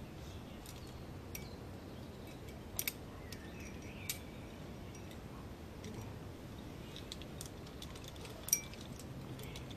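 Climbing hardware clinking: a few sparse, sharp metallic clicks of carabiners and gear on the rope system. There is a quick double click about three seconds in and the loudest single click near the end.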